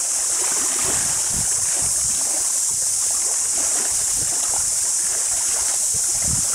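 A steady high-pitched hiss of an insect chorus, with wind buffeting the microphone in low, irregular rumbles and thumps.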